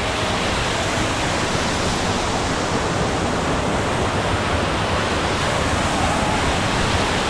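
Tumpak Sewu waterfall: water pouring down onto the pool below, a loud steady rushing noise that never lets up.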